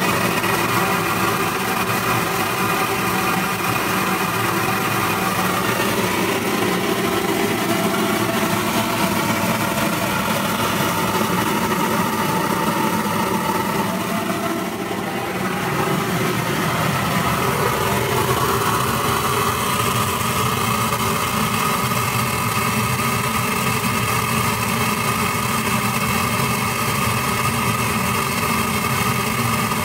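Satake EVOLUTION multi-spectral infrared optical sorter running while sorting pecan pieces: a loud, steady machine drone with several steady tones, shifting a little about halfway through.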